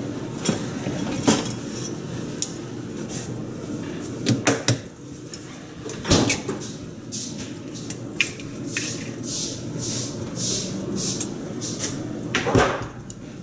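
Kitchen handling sounds: several sharp knocks and clatters of dishes and utensils on a counter, with a run of soft rhythmic swishing in the middle, over a steady low hum.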